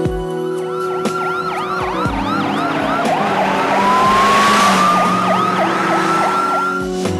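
Police car sirens, several at once, with quick rising-and-falling yelps over a slow wail that sinks and climbs back up. A rushing noise swells and peaks in the middle, over a soft song underneath.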